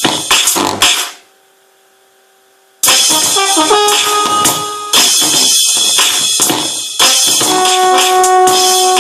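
Synthesizer sound effects: dense noisy percussive hits, then a drop to a faint held note for about a second and a half, then loud noisy hits with short stepping notes, and near the end a held, horn-like tone.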